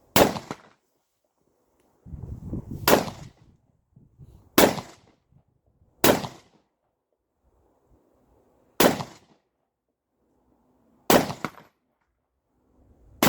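Rifle shots fired singly in a practical-shooting stage, six sharp cracks spaced about one and a half to nearly three seconds apart, with a seventh at the very end. Between shots there is quieter shuffling and movement noise.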